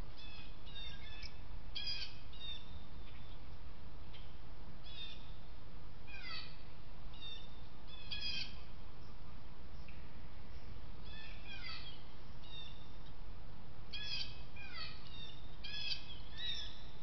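Wild songbirds singing: short whistled and chirping phrases every second or two, many sliding down in pitch, over a steady low background rumble.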